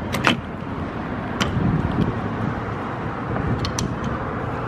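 Steady outdoor rumble of wind on the microphone and road traffic beside a parked car, with a few short clicks of handling near the start, about a second and a half in, and again near the end.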